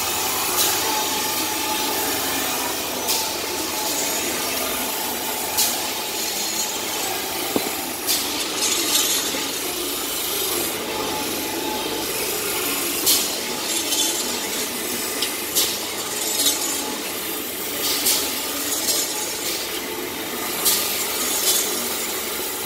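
Automatic band saw log-cutting machine for maxi toilet paper rolls running: a steady mechanical hum and hiss with a sawing, rubbing sound as rolls feed through. Short sharp hisses or clacks break in every two to three seconds.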